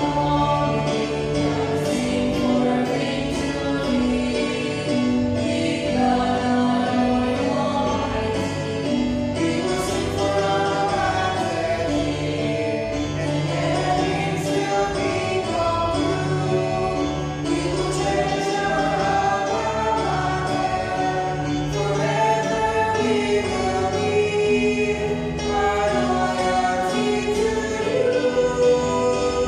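A choir singing a hymn in long held notes over a steady low accompaniment.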